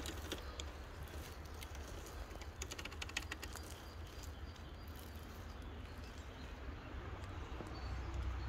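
RC scale crawler working up a steep forest slope, its tyres crackling over dry leaves and twigs, with a quick run of clicks about three seconds in. A low steady rumble lies underneath.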